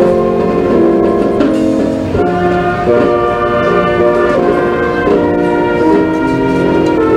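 Slow instrumental music of held chords that change about once a second.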